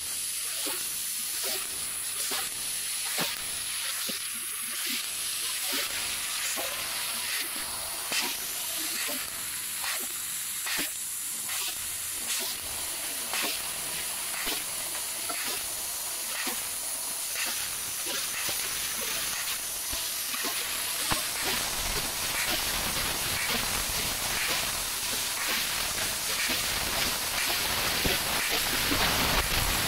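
Fiber laser cutting machine cutting sheet steel: a steady hiss of assist gas from the cutting head, broken by many short crackling ticks as the beam cuts slots and pierces small holes. A lower rumble joins in about two-thirds of the way through.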